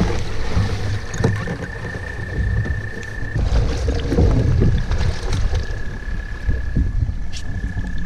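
A person climbing into a canoe and shoving off: boots and gear knocking against the hull several times, over a heavy low rumble on the microphone.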